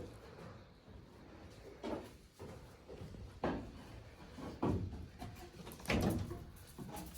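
A few dull knocks and bumps, spaced a second or so apart.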